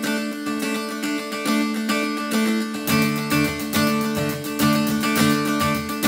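Background music: a guitar tune, joined about halfway by a bass line and a steady beat.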